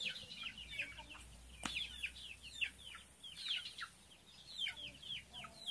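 Kampung (Indonesian village) chicks peeping: a steady run of short, high cheeps, each falling in pitch, several a second.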